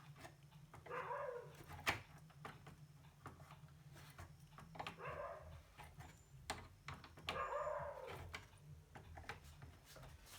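Light clicks and taps of small metal parts being handled while nuts are fitted onto an amplifier's volume-control potentiometers, over a steady low hum. Three short voice-like calls sound at about one second in, near the middle, and about three quarters of the way through.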